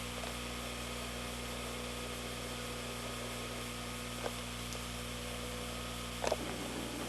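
Steady electrical hum of several fixed tones over a faint hiss, with a couple of small clicks, one past the middle and one near the end.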